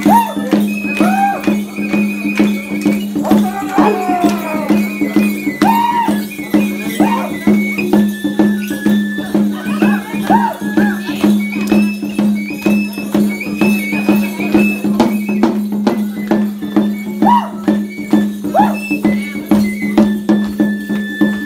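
Traditional music for the Tecuanes masked dance: a high, stepping melody over a steady, even beat and a constant low tone.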